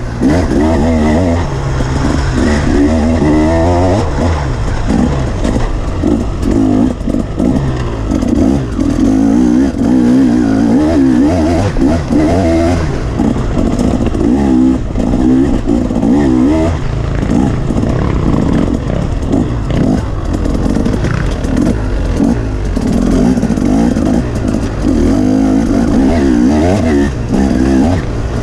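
KTM dirt bike engine revving up and down as it is ridden hard along a trail, heard close from the bike itself, with clatter from the chassis over bumps.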